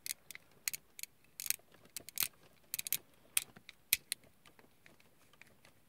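A tiny screw being turned into a plastic model airplane kit with a small precision screwdriver: a run of irregular sharp clicks that stops about four seconds in.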